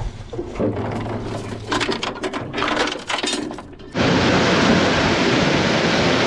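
Irregular clicking and rattling of fishing gear being handled aboard a small boat. About four seconds in, this gives way abruptly to a loud, steady rush of wind and water as the boat gets under way.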